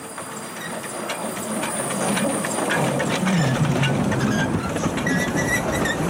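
Narrow-gauge steam locomotive built by Amemiya in 1928 running past with its carriages, steam hissing and wheels clattering on the track. It grows louder over the first two or three seconds as it comes close.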